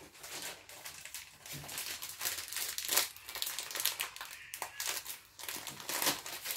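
Plastic packet of grated cheese crinkling as it is handled and opened, a run of short, irregular rustles.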